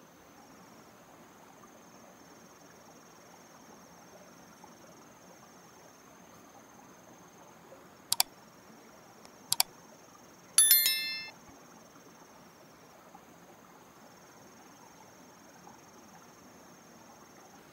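Like-and-subscribe overlay sound effect: two quick double mouse clicks about a second and a half apart, then a short ringing notification-bell chime. Behind it, a faint steady high insect drone.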